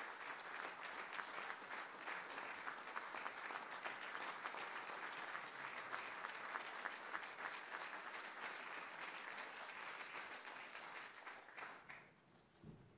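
Audience applauding: a dense patter of many hands clapping at once, holding steady and then dying away about twelve seconds in.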